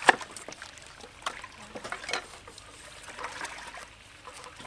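Knives knocking on wooden chopping boards as vegetables are sliced, one sharp knock right at the start and a few lighter ones after, with light water sloshing and trickling from chicken being washed by hand in a metal bowl.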